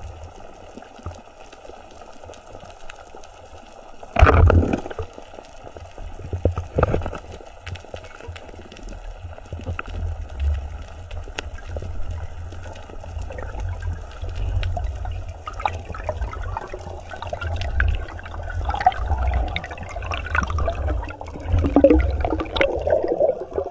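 Water sloshing and splashing over a constant low rumble, with two sharp louder splashes or knocks about four and seven seconds in.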